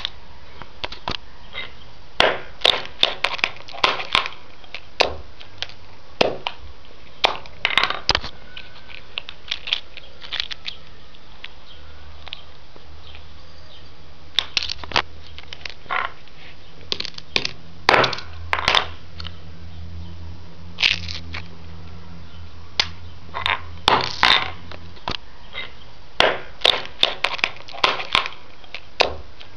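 A headphone speaker driver wired straight to 230 V AC mains crackles and snaps irregularly as it arcs and burns. A low electrical hum sets in about ten seconds in and stops about twenty-five seconds in.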